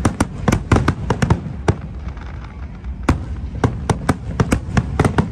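Aerial firework shells bursting in a rapid, irregular string of sharp bangs. They pause for about a second after the first two seconds, then resume.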